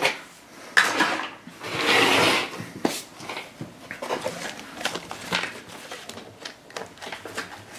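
Small plastic toy pieces being handled: scattered light clicks and knocks, with a short rustle about two seconds in.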